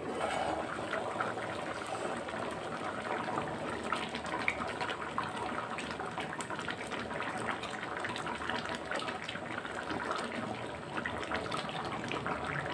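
A pan of runny potato masala simmering on the stove while a silicone spatula stirs through it: a steady wet sloshing with small bubbling pops.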